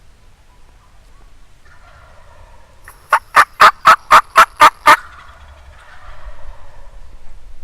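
Turkey yelping: a quick, even run of eight loud yelps, about four a second, near the middle, with fainter turkey calling before and after.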